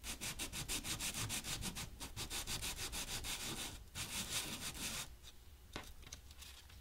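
A Teflon (PTFE) block rubbed briskly back and forth on a sheet of sandpaper to roughen its surface, several rasping strokes a second. There is a brief pause just before the fourth second, the strokes stop about five seconds in, and a single light tap follows.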